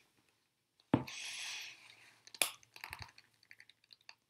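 Scissor blades cutting and prying at the metal casing of a Duracell battery: a sharp snap about a second in followed by a short scrape, another snap about halfway through, then a few faint clicks.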